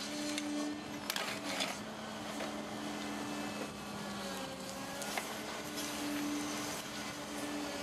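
Cat 309 CR mini excavator's C3.3B diesel engine running under hydraulic load while it digs and swings a bucket of dirt. It makes a steady hum that swells and eases with the work, with a few sharp knocks.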